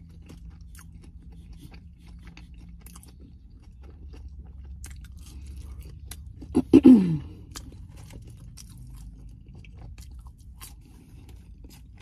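Close-miked chewing and crunching of food, with small wet mouth clicks. About seven seconds in comes a short, loud hum from the eater that falls in pitch.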